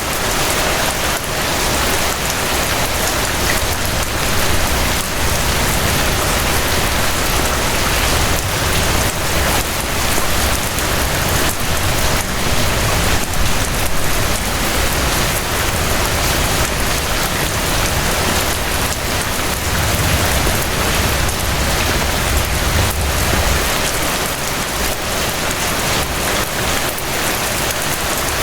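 Steady rain: a dense, even hiss of many drops falling on a surface, with a low rumble underneath that swells about two-thirds of the way through.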